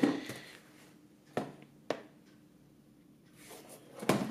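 Cardboard shipping box being handled and turned over: two sharp knocks about half a second apart, with light rustling of the cardboard at the start and near the end.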